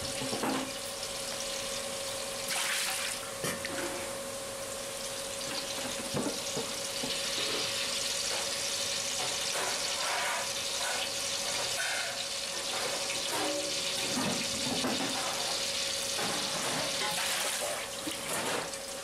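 Liquid being poured into a large aluminium cooking pot, trickling and splashing with a few short splashes, over a steady hiss and a faint continuous hum.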